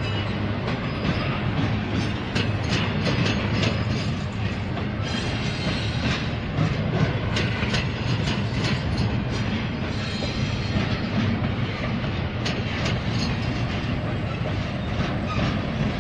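Double-stack intermodal container train's well cars rolling past, a steady rumble with wheels clicking over rail joints. A faint high wheel squeal comes in about five seconds in.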